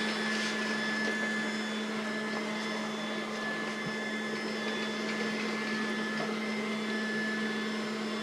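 Trifo Emma robot vacuum cleaner running while it cleans: a steady hum from its suction fan and brushes, with a faint high whine.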